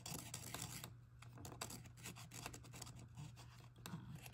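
Yellow felt-tip marker scratching on a small textured canvas in many quick short strokes as it colours in a flower's centre, faintly.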